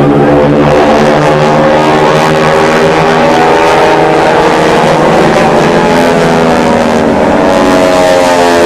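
Military jet engine noise from a low pass, loud and continuous, with the pitch of the engine tones bending near the end as the jet goes by.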